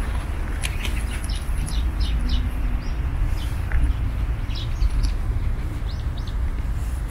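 Small birds chirping in many short, scattered calls over a steady low rumble.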